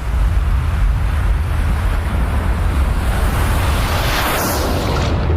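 A deep, steady rumble under a rushing noise that swells over several seconds, then cuts off abruptly near the end.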